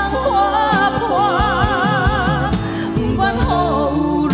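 A woman singing a slow Taiwanese Hokkien ballad over full band accompaniment, with a long note held with vibrato about a second and a half in.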